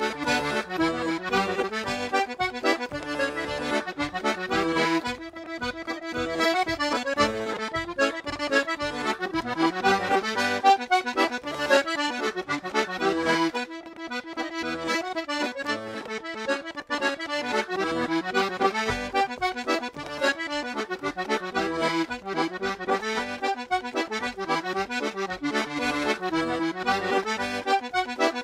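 Button accordion playing a traditional tune, the melody moving quickly from note to note over the bass, with a brief dip in volume about fourteen seconds in.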